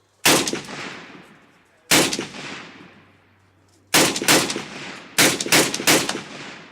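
RPD light machine gun (7.62×39mm) firing four short bursts of a few rounds each. Each burst is followed by a long echoing tail. The last two bursts are the longest.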